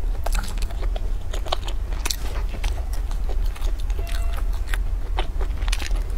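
Close-miked chewing and biting of soft bread buns with a filling: a run of short, sharp wet mouth clicks, with a fresh bite near the end. A steady low hum runs underneath.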